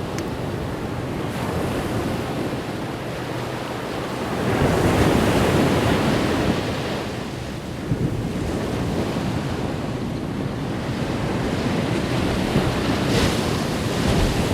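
Ocean waves breaking and washing up a beach, a steady surf with a louder wave surging about a third of the way in and another near the end.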